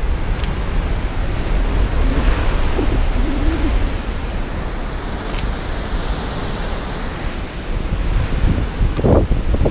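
Wind buffeting the microphone: a steady, loud rush with a heavy low rumble. A few short scuffs come near the end.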